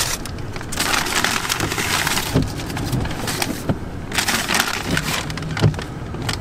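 Paper takeout bag rustling and crinkling as a hand rummages inside it, with a couple of dull knocks.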